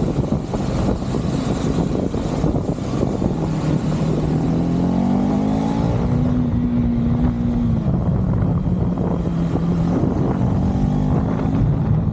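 KTM 390's single-cylinder engine running while under way, its pitch rising as it accelerates about four seconds in, holding, dropping about eight seconds in and climbing again near the end, with steady wind rush over the microphone.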